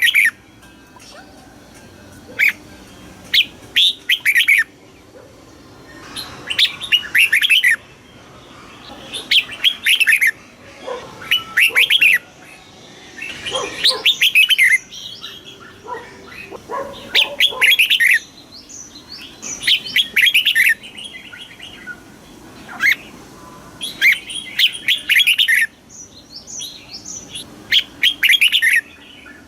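Red-whiskered bulbul singing: short, quick phrases of bright chirping notes, repeated every two to three seconds.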